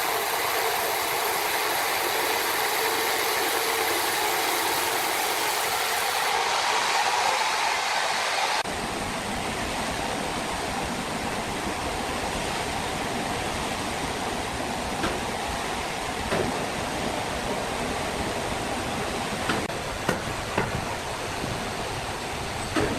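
Sawmill machinery running with a steady, noisy din. The sound changes abruptly about a third of the way in, and a few sharp knocks come near the end.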